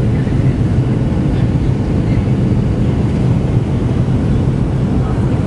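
Boeing 737 cabin noise during descent: a steady low rumble of engines and rushing air through the fuselage, even in level throughout.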